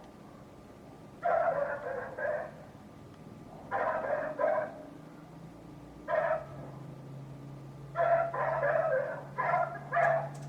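Neighbour's dog barking in short runs, six bursts of a few barks each at uneven gaps, the dog barking on and on.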